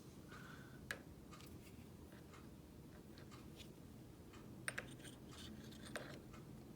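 Near silence: quiet room tone with a few faint, sharp clicks of small tools being handled, one about a second in, a quick pair near five seconds and another around six seconds.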